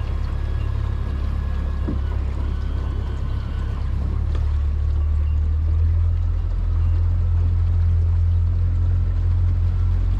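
Mercury outboard motor running steadily at cruising speed, a low drone with water noise from the moving hull; it grows slightly louder about halfway through.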